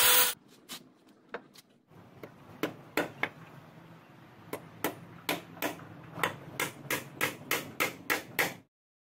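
Hammer blows nailing together the legs of a wooden sawhorse: a few scattered strikes at first, then a steady run that quickens to about three blows a second and stops shortly before the end.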